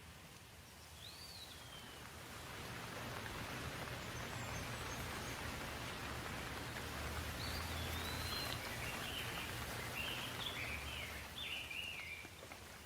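Steady rain falling, swelling in loudness for several seconds and then easing off, with a bird chirping once early and in a run of short chirps in the second half.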